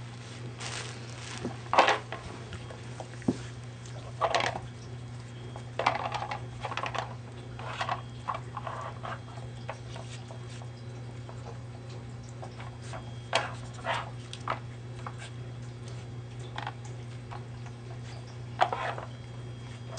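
Shetland sheepdog sniffing and nosing at a Nina Ottosson Dog Tornado plastic puzzle toy in short, scattered bursts, with occasional sharp clicks and knocks from the plastic as it shifts. A steady low hum runs underneath.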